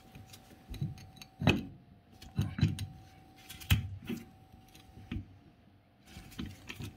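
Several separate metallic clicks and knocks as the steel jaws and crossbar of a rib puller are fitted and seated over an A/C compressor's pulley.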